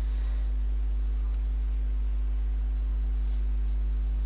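Steady electrical mains hum: a low, unchanging hum with evenly spaced overtones picked up on the narration microphone, with a faint tick about a second and a half in.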